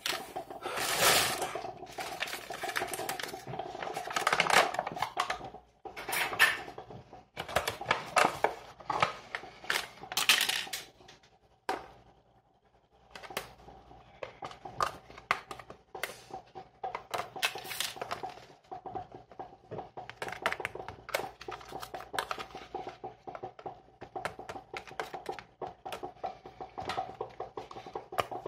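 Kitchen utensils clinking and scraping against dishes in irregular clatters, with a pause about twelve seconds in, over a faint steady hum.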